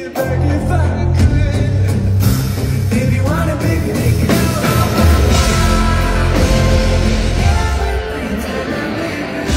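Rock music played live at a sound check: an electric guitar with a strong low end beneath it, and a voice singing.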